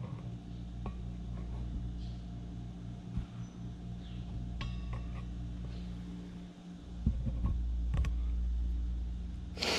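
A few separate light clinks and knocks of sheet-metal stove parts being handled and fitted together, one with a brief metallic ring, over a steady low background hum.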